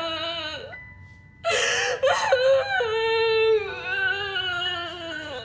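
A young woman crying, with long drawn-out wavering whimpers, over soft background music.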